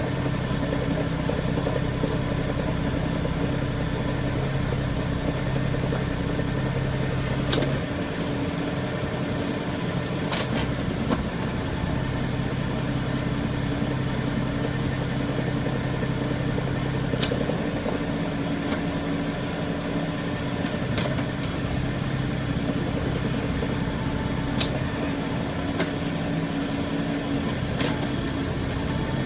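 BMW 335i's straight-six engine idling steadily, with a few sharp clicks at irregular intervals several seconds apart; this is the strange noise the owner is recording from the car.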